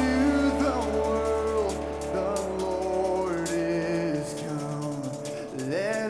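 A live band song: a man sings a slow melody over electric guitar and band accompaniment, and the bass drops out about four seconds in.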